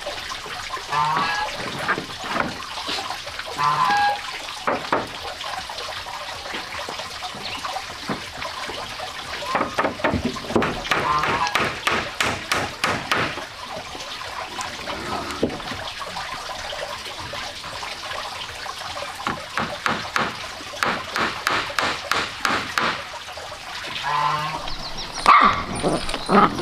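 Scattered knocks and taps of wooden boards being handled and fitted, sometimes in quick runs. Near the end, puppies yip several times.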